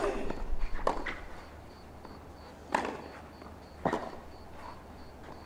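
Tennis ball struck by rackets during a point: a serve, then a rally of sharp hits, four strikes in all.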